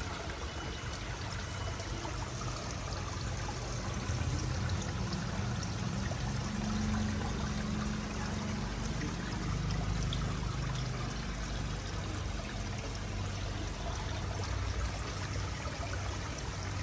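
Small pond waterfall, water spilling over a stone ledge and splashing and trickling steadily into a koi pond, with a faint low hum underneath.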